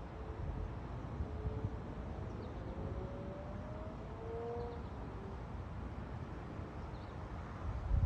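Distant engine hum with a faint tone slowly rising in pitch, over a low wind rumble on the microphone; a heavier gust thumps near the end.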